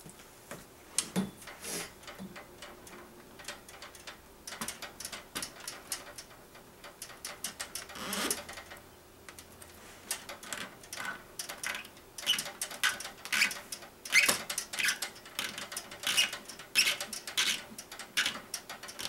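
Flexible water-cooling tubing handled and dragged through a PC case: quick rubbing clicks and scrapes, a few at first and a dense run from about ten seconds in.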